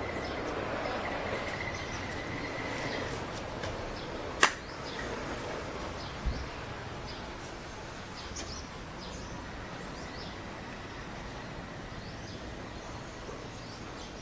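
Outdoor ambience: a steady background hiss with many short, high chirps scattered throughout and a faint steady tone for the first three seconds. A single sharp click stands out about four and a half seconds in, with a softer knock a couple of seconds later.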